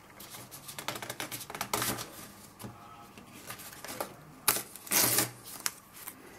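Paper tissue rustling and crinkling, with many small clicks and taps as small glued parts are handled and the excess adhesive is wiped. The loudest crinkles come about four and a half and five seconds in.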